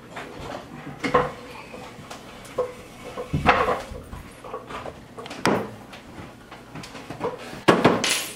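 Knocks and bumps of a wooden kitchen step stool being carried and set down at the sink, with a child climbing onto it; several separate knocks, the loudest near the end.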